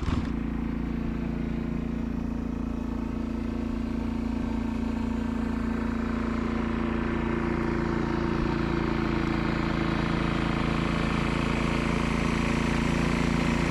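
Dirt bike engine running steadily at an even pitch.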